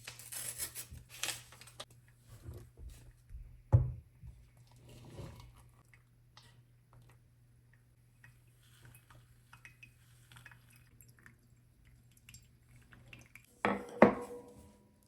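Kitchen clatter of dishes and utensils being handled: scattered clinks and knocks, with a sharp knock about four seconds in and two loud knocks near the end, the last ringing briefly like metal or ceramic. A faint steady hum lies underneath.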